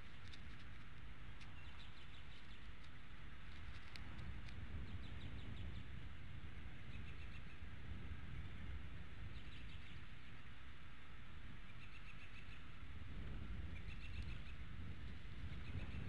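Wind rumbling on the nest-cam microphone, growing stronger near the end. Over it, birds give short, high chirping trills again and again.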